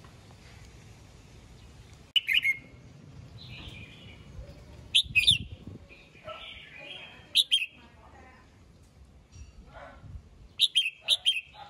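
Red-whiskered bulbul singing: four short, loud phrases of a few quick notes, spaced a few seconds apart, with softer warbling in between.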